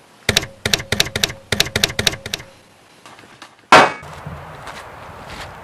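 A quick run of about ten sharp, ringing knocks over two seconds, then after a pause one loud single shot, in keeping with a 5.56 AR-15 rifle being fired on the range.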